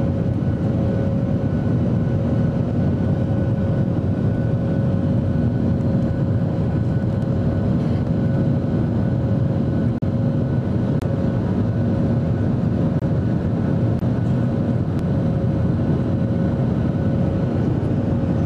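Steady cabin noise of a Boeing 737-800 in flight, heard inside the cabin over the wing: the CFM56 jet engines' drone with a few steady hums inside the rushing air noise.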